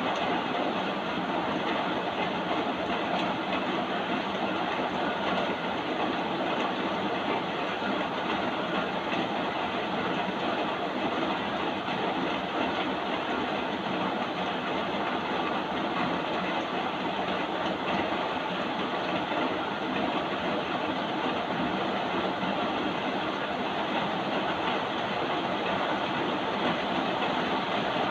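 Steady rain falling, an even, unbroken hiss with no separate drops or other events standing out.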